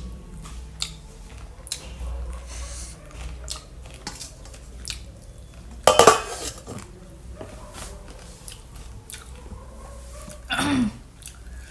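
A person chewing and biting fruit, with many small crunches and clicks of cutlery or a dish. There is a louder sudden burst about six seconds in and a short voiced sound with a falling pitch near the end.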